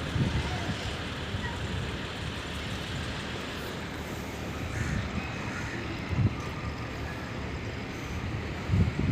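Steady rumble of vehicles or engines, even and unbroken, with a couple of brief low knocks in the middle.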